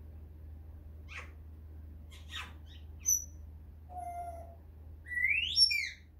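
Pet parrot calling: a few short chirps and brief whistles, then a loud whistling call about five seconds in that sweeps up in pitch and back down.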